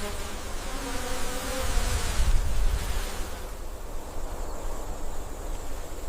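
Insects buzzing, with faint wavering hums over a steady low rumble.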